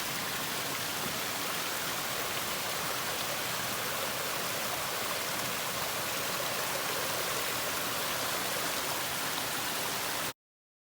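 Steady rushing of a mountain creek's water, cutting off suddenly near the end.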